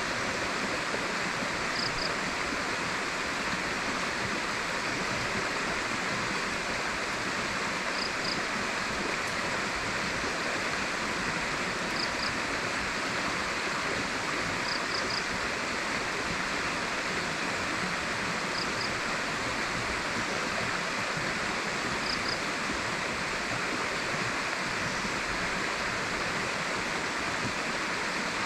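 River water flowing steadily, with a faint short high double chirp every few seconds.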